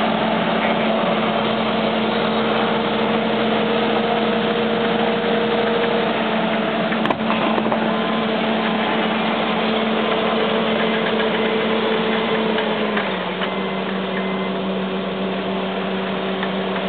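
John Deere tracked excavator's diesel engine running steadily, its pitch stepping down to a lower engine speed about thirteen seconds in. A single brief click about seven seconds in.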